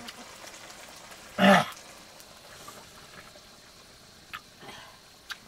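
Water boiling in an iron wok over a wood fire, with a few small clicks, and one short loud burst about a second and a half in.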